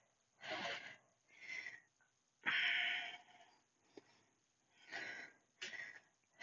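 A woman breathing hard during leg exercise: short exhales and sniffs roughly once a second, with one longer, louder breath out about two and a half seconds in.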